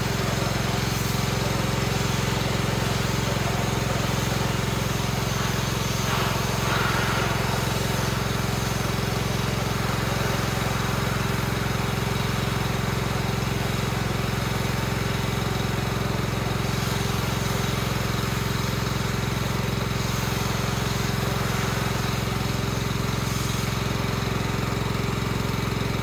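Pressure washer's small engine running steadily under load, with the hiss of the water jet spraying vinyl siding.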